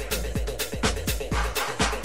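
Tech-house DJ mix: a steady four-on-the-floor kick drum at about two beats a second, with hi-hats between the kicks.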